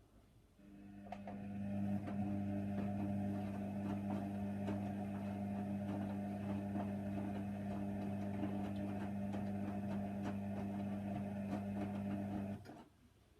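Hoover Nextra HNWL 7146 washer dryer running on its Cotton 60 cycle: a steady motor hum with light clicking and rattling that builds up over a second or so, holds for about ten seconds, then stops abruptly.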